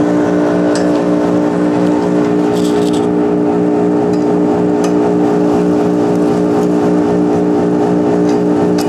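Smog Hog fume extractor's blower running steadily at speed: a loud, even hum with a regular pulsing beat in it. A few light clicks sound over it.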